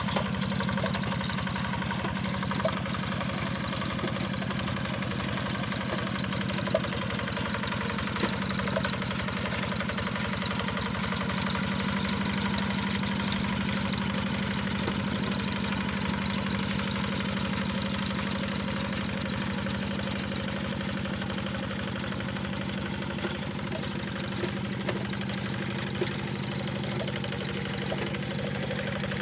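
Hand tractor's Yanmar single-cylinder diesel engine running steadily, with a few sharp clacks over its note.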